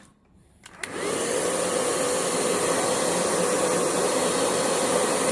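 Hair dryer switched on about a second in and running steadily, blowing to dry wet ink and colour on a painting.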